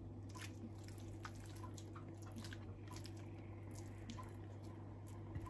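Mashed purple yam being scraped from a glass bowl into a pan of hot milk and melted butter with a silicone spatula: faint soft squishing and small scattered ticks, over a steady low hum.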